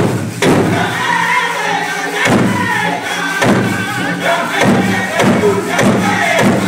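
Powwow drum group singing a song in high, wavering voices over a low droning part, with the big drum struck in a few heavy, unevenly spaced beats.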